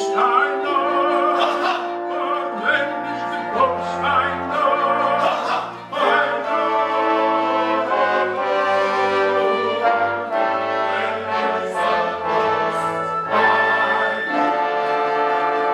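Theatre orchestra playing operetta music with the cast and chorus singing over it.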